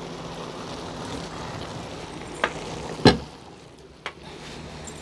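Cooking noises at the stove as a kadhai of finished Maggi noodles is taken off the heat: a steady low hiss, a light click about two and a half seconds in, then a loud knock about three seconds in, after which the hiss drops away, and one more click near four seconds.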